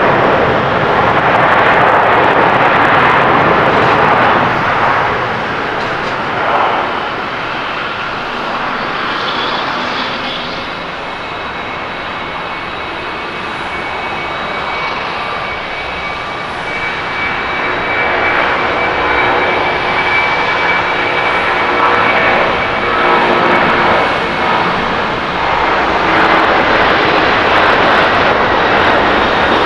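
Boeing 767-300ER jet airliner engines. First a landing airliner rolls along the runway with loud engine noise that dies down about five seconds in. Then, after a cut, a second 767-300ER's twin jet engines run at takeoff power with a steady high whine, growing louder as it accelerates down the runway and lifts off near the end.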